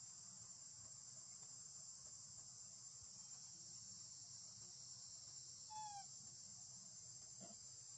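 Faint, steady high-pitched insect chorus. A single short falling call sounds about six seconds in.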